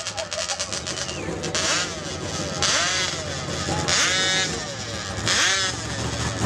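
Engine of a tractor-tire mud truck running as it drives slowly, revved in about four short blips roughly a second and a half apart, each rising and falling in pitch.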